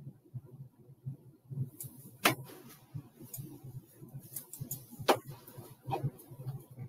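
Three sharp clicks or taps, spaced a few seconds apart, over a faint, uneven low rumble of room noise.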